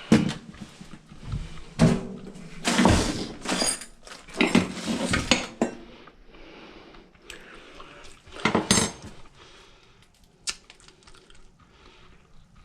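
Hard dryer parts being handled and set down: irregular clanks and rattles, busiest in the first half, with another short clatter later and a few light clicks near the end.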